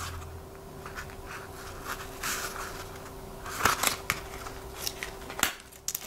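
Handling noise from a nylon knife holster worked in the hands: fabric rubbing and rustling with a few small sharp clicks, the clearest about three and a half and five and a half seconds in, over a faint steady hum.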